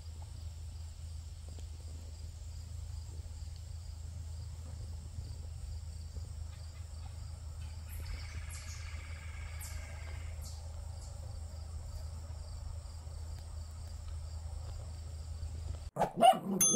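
Insects, crickets by their steady high chirping, over a low steady outdoor rumble, with a brief buzzier trill partway through. Near the end it cuts off sharply into a loud, short burst of outro sound effects.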